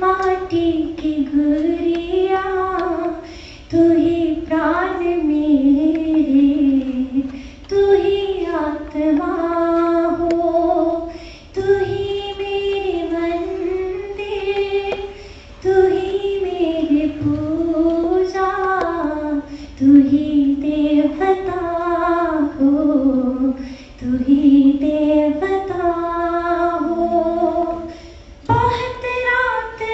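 A girl singing solo into a handheld microphone: a slow, flowing melody in phrases of a few seconds, with short pauses for breath between them.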